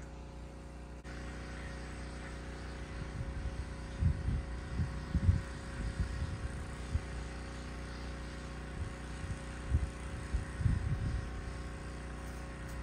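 Quiet outdoor background: a steady low hum with a few short, low rumbles in the middle stretch, and no clear event standing out.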